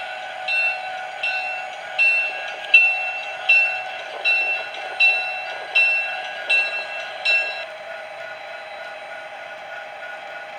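Model commuter train running past with a steady motor and wheel hum, while a bell rings about once every three-quarters of a second. The bell stops a little under eight seconds in.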